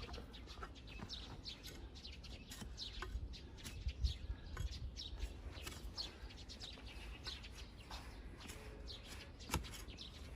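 Small birds chirping, many short high chirps one after another, over a low steady rumble. A single sharp click sounds about nine and a half seconds in.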